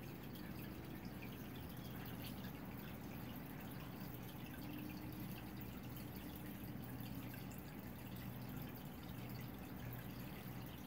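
Aquarium water dripping and trickling, over a low steady hum.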